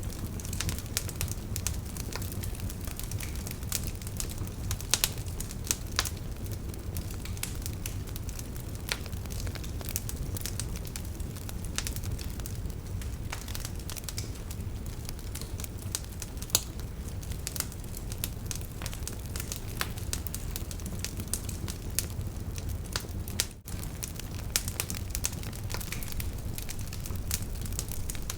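Campfire burning, with frequent sharp crackles and pops over a steady low rumble of the flames. There is a momentary drop-out about two-thirds of the way through.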